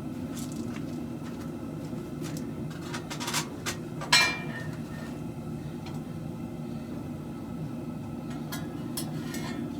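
A steady low hum runs throughout, with scattered light metal clicks and taps and one loud, ringing metal clank about four seconds in.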